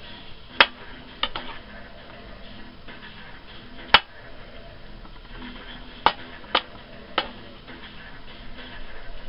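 Kitchen knife slicing through red potatoes and striking a plastic cutting board: about seven sharp taps, unevenly spaced, the loudest about four seconds in.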